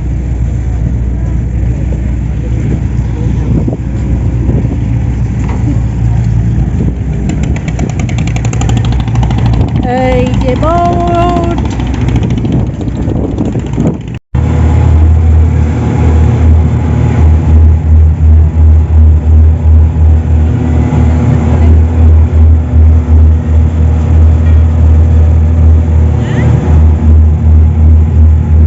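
Boat engine running with a steady low hum. After a cut about halfway, it gives way to a louder, regular low throbbing of about two beats a second.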